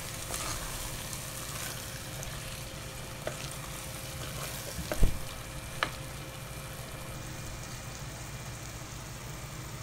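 Wooden spatula stirring a thick chickpea masala in an aluminium pressure cooker as it sizzles steadily on the heat. There are two light knocks of the spatula against the pot about five and six seconds in.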